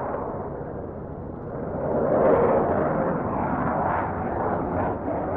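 Dassault Rafale C fighter jet's twin Snecma M88 turbofans, a broad jet roar that grows louder about two seconds in as the aircraft passes.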